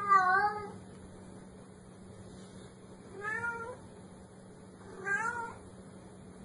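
Domestic cat meowing three times, about two seconds apart, each call short with a wavering pitch; the first is the loudest.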